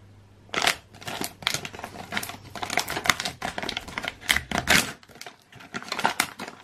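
Metallised foil blind-bag pouch being torn open and handled: a rapid, irregular run of crinkles and rustles, loudest a little past the middle, with a short pause before a last few crinkles.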